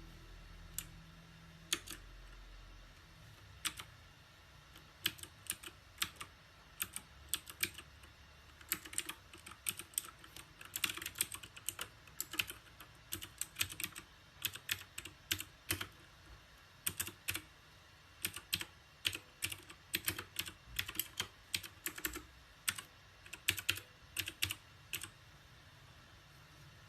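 Mechanical keyboard keys being typed on in irregular runs of clicky keystrokes, a few scattered presses at first, then faster bursts of several keys a second.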